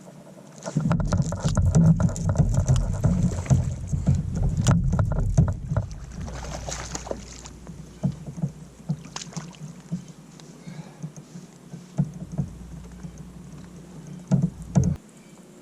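Knocking, bumping and rustling on a kayak, with a low rumble. It is loudest and busiest from about one to six seconds in, then eases to scattered clicks and a couple of louder knocks near the end.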